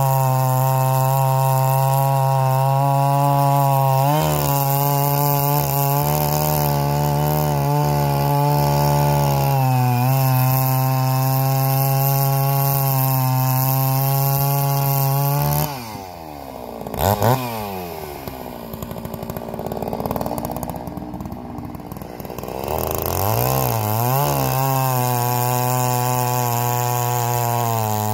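G660 two-stroke chainsaw running at full throttle while cutting through a log for about fifteen seconds. It drops to idle about halfway through, gives a brief rev, then revs back up and cuts again for the last few seconds.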